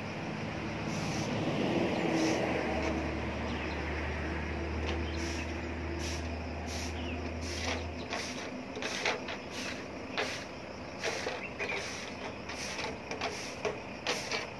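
A heavy motor vehicle's engine rumbling as it goes by: the sound swells over the first couple of seconds, holds a steady low rumble, and stops abruptly just past halfway. Scattered sharp clicks and taps follow.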